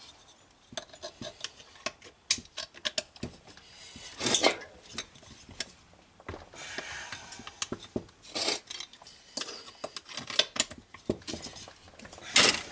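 Metal hand tools and small steel parts clinking and clattering on a workbench as the cylinder of a chainsaw engine is unbolted with a T-handle wrench: scattered light clicks, a brief scrape, and a few louder clatters, the loudest near the end.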